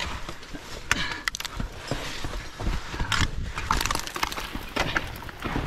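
Irregular knocks, clinks and scrapes of winter climbing gear, such as crampons, ice tools and hardware, against rock.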